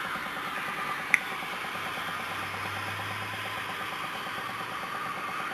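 Hydroxy electrolysis cell running steadily, a continuous fizzing hiss with fast fine bubbling as hydrogen and oxygen gas stream off stainless-steel double-helix electrodes in KOH solution. A single sharp click about a second in.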